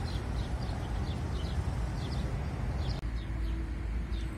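Small birds chirping, short high falling chirps a few times a second, over a steady low rumble. A faint steady hum joins about three seconds in.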